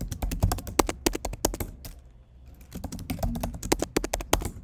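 Typing on a computer keyboard: a password being keyed in as two quick runs of key clicks with a short pause between them, the second run stopping shortly before the end.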